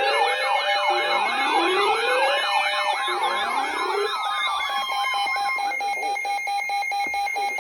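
Several electronic sirens sounding at once, overlapping wailing and yelping sweeps over a steady tone. The sweeps die away about five to six seconds in, leaving a fast-pulsing tone that leads into an emergency alert.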